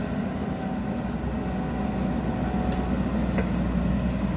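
JCB backhoe loader's diesel engine running steadily with a low rumble.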